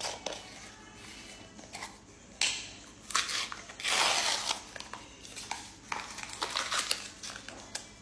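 Plastic seal on a small tub of electrolyte powder being picked, bitten and torn open: a run of irregular crinkling and tearing scratches, the longest and loudest about four seconds in.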